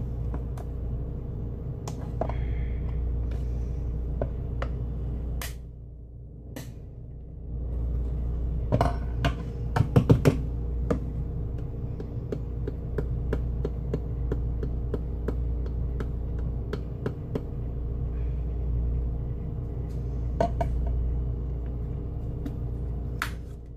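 Sharp little clicks and taps of a tin of ground black pepper and a spoon being handled as pepper is tipped out, with a cluster of taps about ten seconds in, over a steady low hum.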